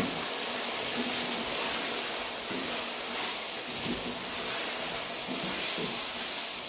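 Boneless mutton pieces with ground spices sizzling steadily in hot oil in an aluminium pot. A wooden spoon stirs and scrapes through them, giving a few light knocks against the pot, as the meat and masala are being fried (bhuna).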